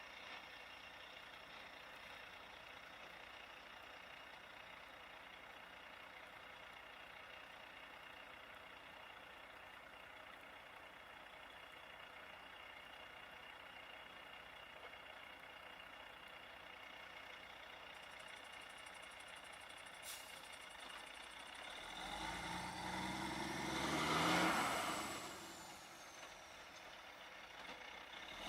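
Faint, steady running of vehicle engines idling in the distance. About three quarters of the way through, a vehicle passes by, growing louder to a peak and then fading away within a few seconds.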